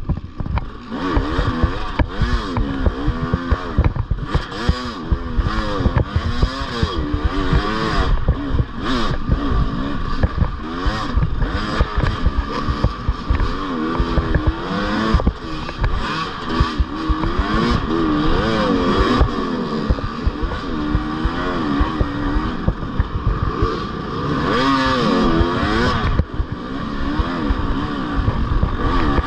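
Off-road motorcycle engine revving up and down over and over as the bike is ridden along a trail. Knocks and clatter come through as it rides over rough ground.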